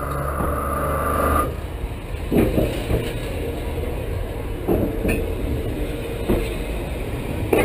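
Clayton CB40 battery electric locomotive running slowly over the track, heard from between the rails. A steady high tone and low hum stop about a second and a half in, then a rumble with several sharp knocks at uneven intervals as the locomotive passes overhead.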